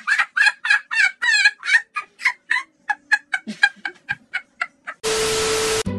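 A quick run of short, shrill turkey-like gobbling calls, about four a second, growing sparser and fainter, then a short steady hiss with a low hum near the end.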